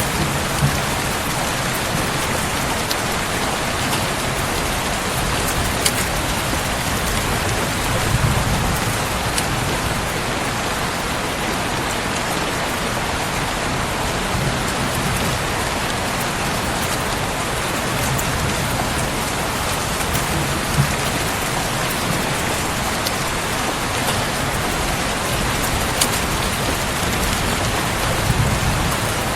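Steady rain falling, with a few sharp crackling pops from a wood fire and soft low rumbles now and then.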